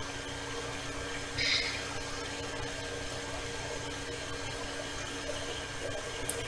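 Steady low electrical hum of room background, with one brief rustle of paper inserts being handled about a second and a half in.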